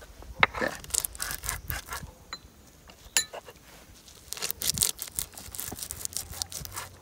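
Stone grinder (sil-batta) in use: the stone muller is scraped and rubbed over the flat stone, crushing hemp seeds into a wet spice paste, in a run of irregular gritty strokes.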